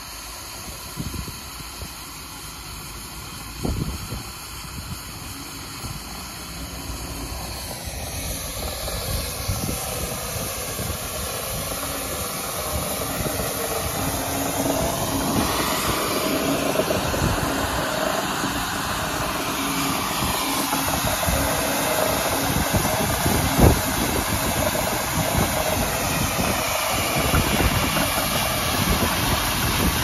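Steam ploughing engine working, a steady hiss of steam that grows louder as the engine is neared, with a rise and fall about halfway through.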